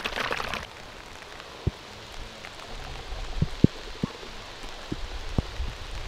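Light rain pattering, with single drops ticking sharply close by every second or so. A brief rustle opens it.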